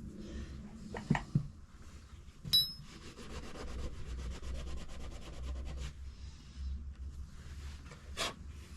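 Vintage Bonney steel wrenches being handled: a couple of light knocks, then a metal clink that rings briefly about two and a half seconds in, followed by a few seconds of fast, even rasping rub and a single click near the end.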